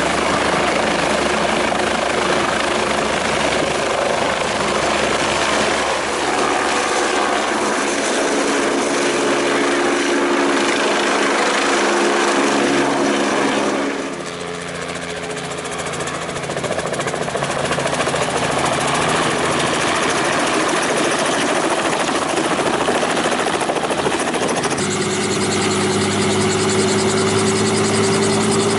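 Helicopter running, its turbine and rotor making a loud steady noise. The sound dips briefly about halfway. Near the end a new set of steady tones comes in, slowly rising in pitch.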